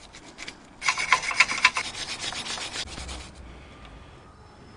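Small wooden-handled wire brush scrubbing a car battery cable's terminal clamp clean, with quick back-and-forth strokes. The strokes come fast and strong from about a second in and die away after about three seconds.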